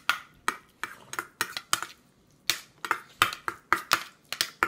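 Spoons scraping and clinking against a metal bowl as food is scooped out: a quick, irregular run of sharp clicks with a short pause about two seconds in.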